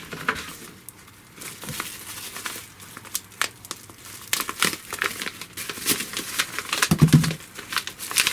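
Plastic bubble-wrap packaging crinkling and crackling in irregular bursts as it is handled and unwrapped by hand, with a brief low sound about seven seconds in.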